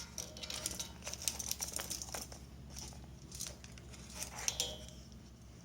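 Thin plastic crinkling and rustling in the hands, with many small irregular clicks and crackles.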